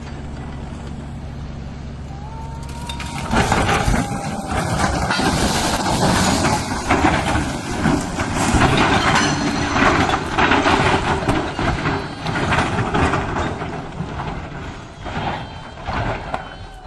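A heavy vehicle's engine running steadily. From about three seconds in, a much louder, rough rumbling full of knocks and clatters sets in, then fades near the end.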